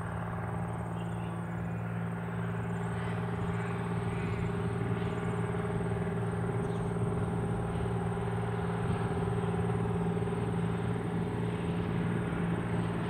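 Diesel engines of the vintage EMC rail motor 63RM, twin Detroit Diesel 6-71 two-strokes, running with a steady deep hum that grows gradually louder as the railcar comes closer.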